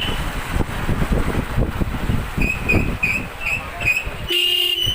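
Road traffic noise with a run of about six short high beeps about halfway through, then a longer steady horn blast near the end.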